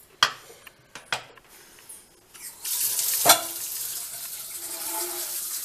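Kitchen sounds: two light knocks of utensils, then a steady sizzling hiss from about two and a half seconds in that runs on loudly.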